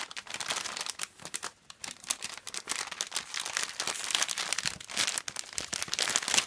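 Crinkly plastic packet crackling and rustling in irregular bursts as it is handled and a cat pushes its head into it.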